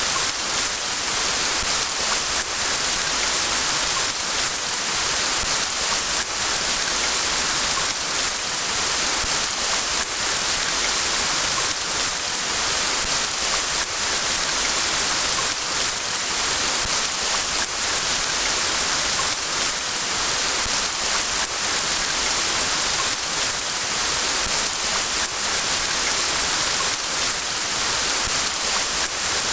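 Steady rain falling: a dense, even hiss with many faint ticks of single drops, unchanging throughout.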